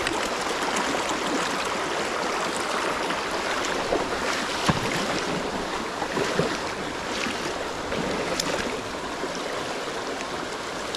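Shallow river running over stony riffles: a steady rush of water, with a few sharp clicks around the middle.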